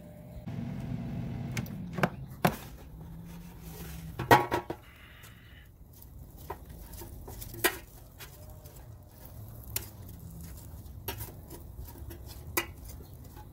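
Metal kitchen tongs clicking and clattering against the nonstick basket of a Gourmia GAF838 air fryer while turning potato wedges. Scattered sharp clicks, the loudest clatter about four seconds in.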